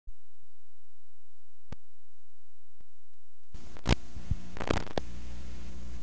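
Playback noise of a VHS tape starting up: a faint low hum with two soft clicks, then about three and a half seconds in, tape hiss and hum come in abruptly with several sharp pops and crackles, settling into a steady hum and hiss.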